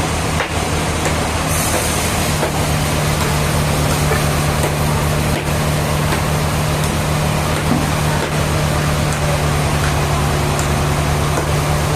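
Sawmill machinery running steadily: a loud, even din with a constant low hum and no clear change in load.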